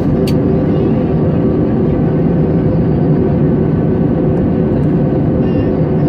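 Airliner cabin noise during a landing: steady engine and airflow noise with an even, low hum. A single sharp click sounds about a quarter of a second in.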